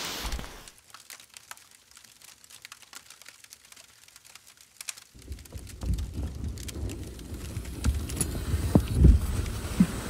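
Faint, sparse crackling clicks of a small wood fire, then about five seconds in a low rumble with soft thumps and rustles from movement inside a rooftop tent.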